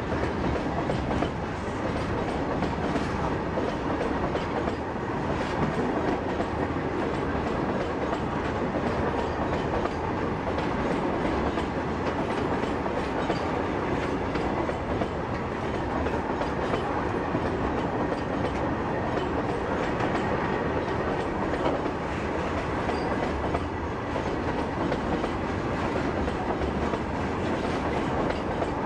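Freight train of BOXN covered wagons rolling steadily past, with a continuous rumble and clickety-clack of wheels on the rails.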